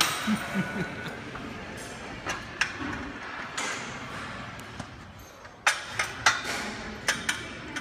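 Metal clanks and knocks from a plate-loaded seated calf raise machine and its weight plates as a lifter sets up on it: two knocks a few seconds in, then a louder run of four or five clanks in the last two seconds, over the noise of a busy gym.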